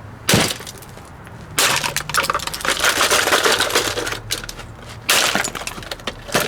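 An old table fan being broken apart: a sharp hit, then a few seconds of dense crackling and clattering as brittle plastic and metal parts break and crumble, with another burst about five seconds in and a last hit near the end.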